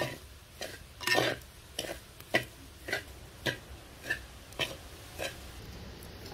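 Metal spatula scraping and knocking against a clay pan while stirring semolina as it roasts: a run of short strokes, about two a second, that stops about five seconds in.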